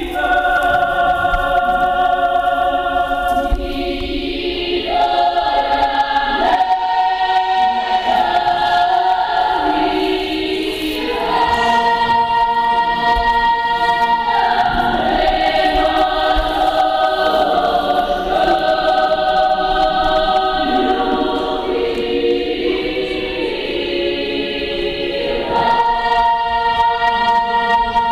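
A choir singing slow, long-held chords in several voices, the harmony shifting to a new chord every few seconds.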